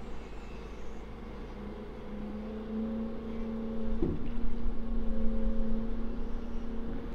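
Engine-driven hydraulics of a catamaran haul-out trailer running steadily as its controls are worked. The hum grows stronger a couple of seconds in and louder from about four seconds, where there is a short knock.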